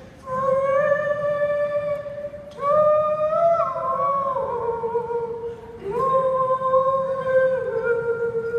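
An elderly woman singing solo with no accompaniment: slow, long-held notes in three sustained phrases, with gliding changes of pitch between them.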